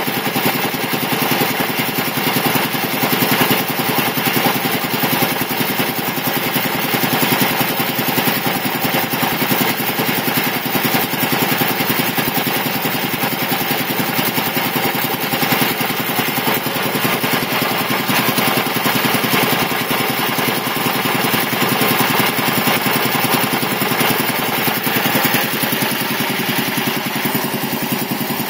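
Quincy 325 reciprocating air compressor pump, belt-driven by a 5 HP single-phase electric motor and slowed to about 620 rpm, running steadily with a fast even chugging. It is pumping up the tank at around 100 psi.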